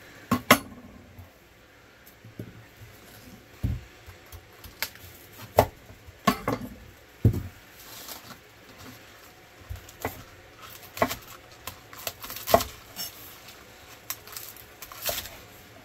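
Chef's knife cutting young onions and their green tops on an end-grain wooden cutting board: a dozen or more sharp knocks of the blade on the wood, irregularly spaced, with quieter handling of the onions between.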